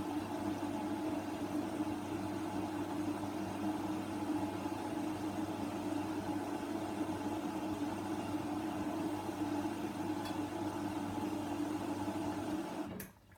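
Hoover washer dryer running early in a 60-degree wash, a steady motor hum that cuts off suddenly near the end.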